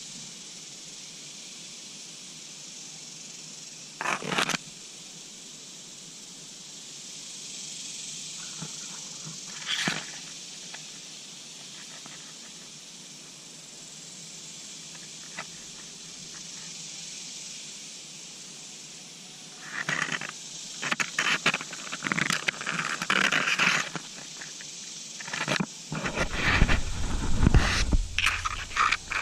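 Scattered rustling and scraping noises over a steady high hiss. They come once or twice in the first half and then crowd together in the last third, with a brief low rumble near the end.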